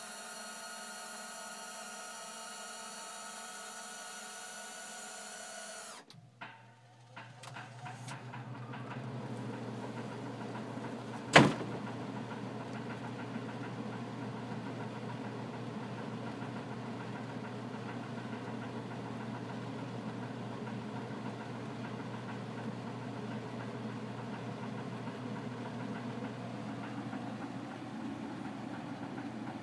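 Electric linear actuators whirring steadily as they push the fan-box lid open, stopping abruptly about six seconds in. A whole-house fan then spins up into a steady hum with rushing air, and a single loud click comes a few seconds later.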